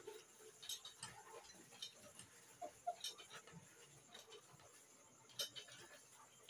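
Faint close-up chewing of crispy fried pork belly: scattered short mouth clicks and crunches, a few louder ones about three seconds in and near the end.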